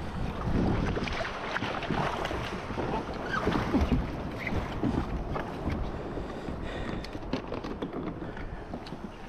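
Sea water splashing and lapping against a kayak, with wind rumbling on the microphone. The splashes come irregularly and are busier in the first half.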